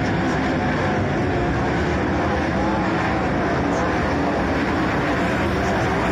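Several dirt-track speedway race cars running at high revs around the oval, a loud continuous engine drone whose pitch wavers up and down as the cars circulate.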